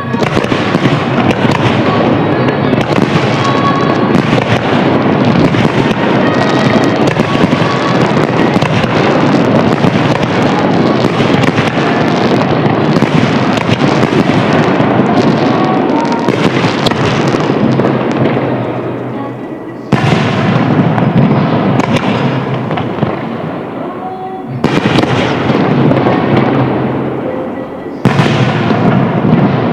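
Fireworks display: a dense, continuous barrage of shell bursts and crackle, with music beneath. The sound cuts abruptly a few times, about two-thirds of the way through and again near the end.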